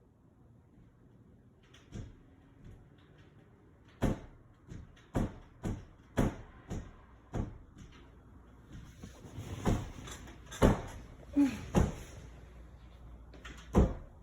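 A small child banging on something hard: about a dozen sharp, irregular knocks and bangs, starting about two seconds in, coming thicker from about four seconds in, the loudest near the end.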